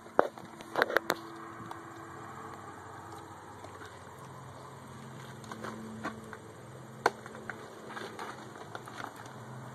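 A faint steady low hum with a few sharp clicks or knocks: a cluster in the first second and a single one about seven seconds in.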